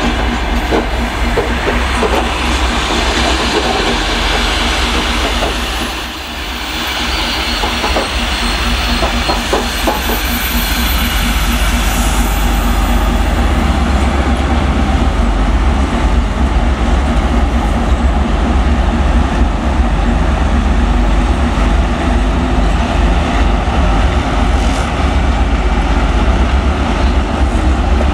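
Passenger coaches rolling by with wheel clatter over the rail joints, then a twin-section 2M62 diesel locomotive pulling a train of coaches under power. Its two-stroke V12 diesel engines give a steady low drone over the clatter of the wheels.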